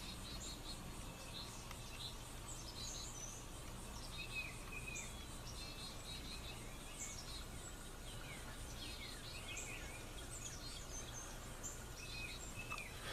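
Several small birds chirping and calling: scattered short twitters and quick falling slurs, over a faint steady low hum.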